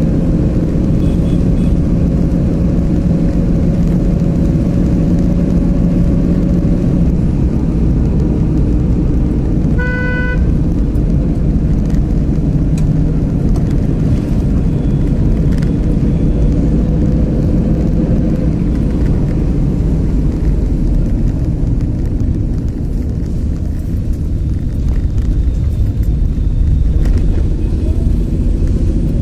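Car driving on a road, heard from inside the cabin: a steady engine and road rumble whose engine note drifts slowly up and down, with one short horn beep partway through.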